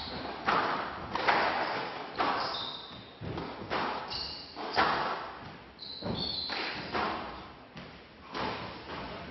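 Squash rally: rackets striking the ball and the ball thudding off the walls, about one hit a second, with several short high squeaks of shoes on the court floor.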